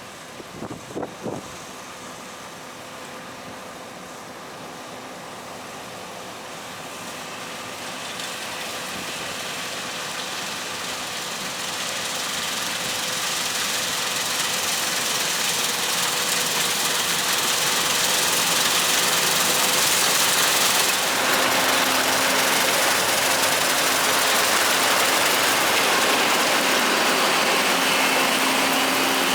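Combine harvester running, a steady machine noise with a few held whining tones that grows steadily louder over the first twenty seconds and then holds.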